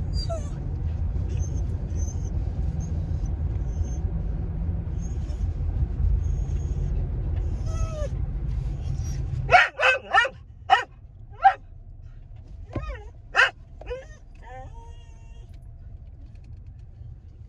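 Steady low rumble of a car on the move, which drops away about ten seconds in; then a dog barks loudly inside the car, a quick run of four barks followed by a few more spaced ones.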